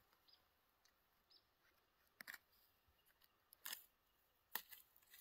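Near silence outdoors, broken by a few faint, scattered short clicks and crackles.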